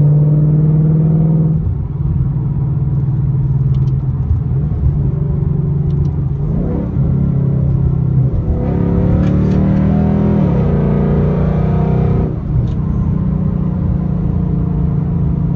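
Ford Mustang GT's 5.0 L V8 with a loud exhaust, heard from inside the cabin while driving. The engine note climbs and drops back a few times as the car pulls through the gears.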